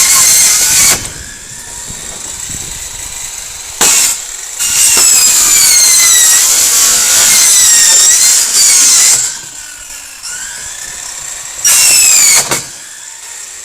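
Corded AC circular saw run on about 91 volts DC from a battery-fed converter, cutting wood in several bursts. Its high whine drops in pitch during each cut, and there are much quieter gaps between cuts.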